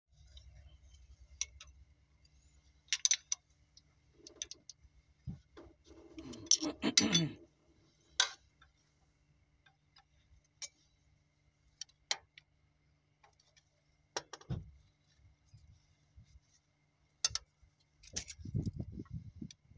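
Wrench and metal parts clicking and clinking against the rocker arms of a Cummins NT855 diesel engine during tappet setting (valve and injector adjustment), with a longer, louder clatter about six to seven seconds in and a low rattle near the end.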